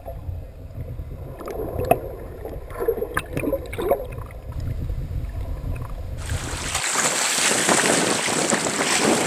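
Underwater audio from a submerged camera: a muffled low rumble with scattered clicks and ticks. About six seconds in it switches to open-air sound of churning, splashing sea water, a steady hiss with some wind on the microphone, as striped bass and false albacore break the surface chasing bait fish.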